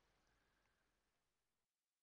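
Near silence: faint recording hiss fading away.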